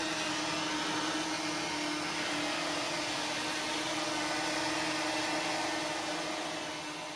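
Quadcopter drone hovering close by, its propellers making a steady buzzing hum with one held pitch, which begins to fade near the end.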